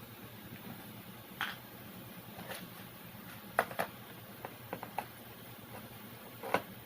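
Irregular light clicks and taps of small tools and parts being handled during amplifier repair work, about eight in all, the sharpest a little after three and a half seconds and near the end.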